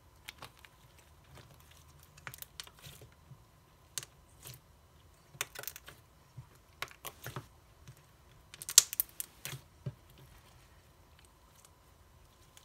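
Thick pale slime being kneaded and squeezed by hand, giving scattered clicks and pops in irregular clusters. The loudest run comes about nine seconds in.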